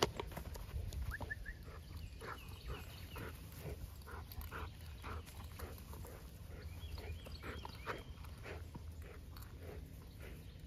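A dog breathing hard in quick strokes, about two or three a second, while carrying a tug toy in its mouth.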